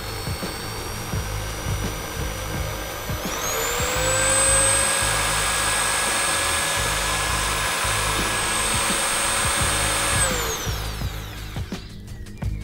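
Bosch corded electric drill running while drilling a fixing hole in a Land Rover's front panel: its motor whine steps up to a higher speed about three seconds in, holds steady, then winds down near the end.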